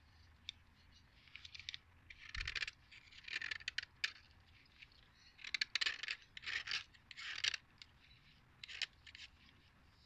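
A utility-knife blade scraping the outer layer off a block of chalk, in short scratchy strokes that come in bursts with brief pauses between them.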